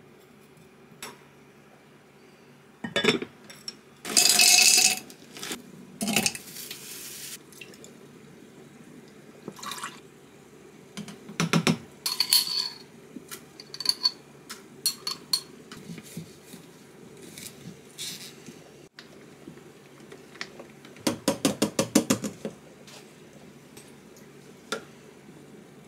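Kitchen handling sounds: a metal spoon clinking against glass jars and a plastic blender cup, with two short bursts of pouring. Near the end comes a quick run of about a dozen even taps in just over a second.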